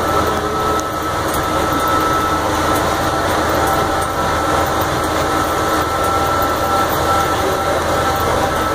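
Tractor engine running steadily as it tows a passenger wagon, with the even rumble and rattle of the ride and a thin steady whine over it.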